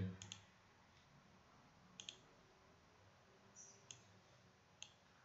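Computer mouse clicking: a handful of short, sharp clicks, some in quick pairs, over near silence.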